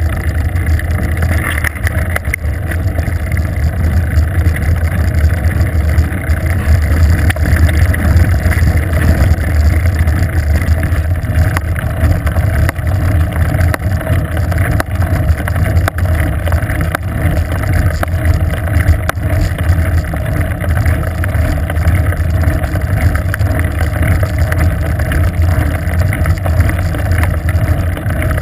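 Steady low wind rumble buffeting a bicycle-mounted GoPro camera's microphone while riding on asphalt, mixed with road noise from the tyres.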